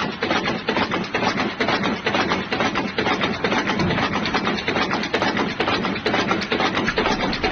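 Steady, rapid mechanical clatter: a stream of short knocks, several a second, without a break.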